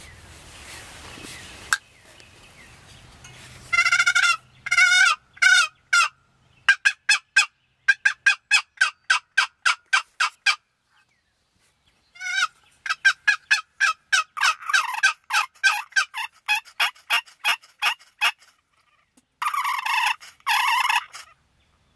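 Turkey yelps made on a hunter's turkey call: a few drawn-out yelps, then two long, even runs of short yelps at about three a second with a short pause between, ending in two harsh, raspy notes.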